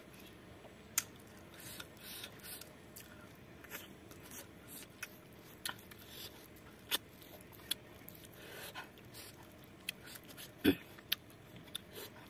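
Eating by hand, close up: scattered sharp mouth clicks and smacks of chewing, one louder near the end, with soft scrapes of fingers gathering the last food off a wooden plate.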